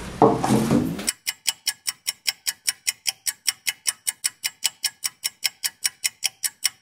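Clock ticking, evenly at about four ticks a second. It starts about a second in, as the room sound cuts out abruptly.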